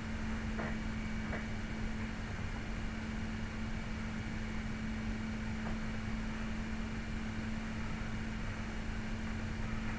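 A steady low electrical hum on one tone with a constant hiss, and two or three faint light ticks in the first second and a half.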